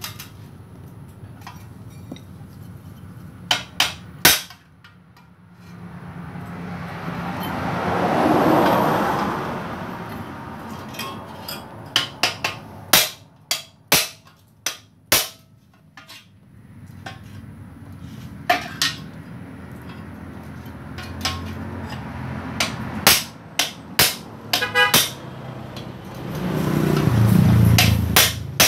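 Hammer blows on a steel motorcycle muffler as it is being hollowed out, sharp metallic strikes coming in clusters of a few quick hits with pauses between. Twice a passing vehicle swells up and fades, about six seconds in and again near the end.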